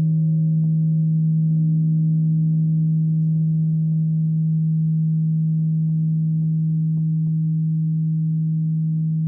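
Singing bowl ringing with a low steady hum and several higher overtones, fading very slowly.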